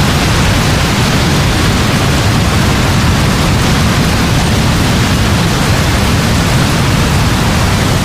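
Heavy rain falling steadily: a dense, even hiss with a deep rumble underneath.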